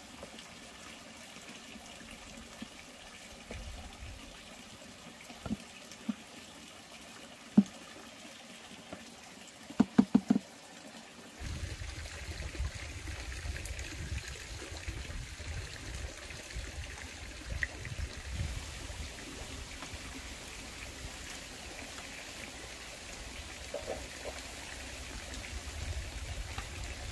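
Large pot of wild greens boiling hard over a wood fire: steady bubbling with a low rumble, which becomes fuller and louder about eleven seconds in. A quick run of four sharp clicks comes just before, about ten seconds in.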